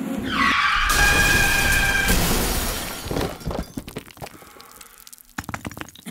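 Sound effect of a vehicle crashing through a wall. A high brake screech slides down and holds over a heavy roar for about two seconds, then comes the smash. Debris and broken glass clatter down after it, in a scatter of sharp cracks and clinks that thins out, with one more burst near the end.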